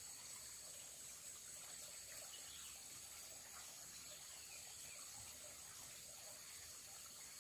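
Faint ambience of a small forest stream trickling, under a steady high-pitched hum.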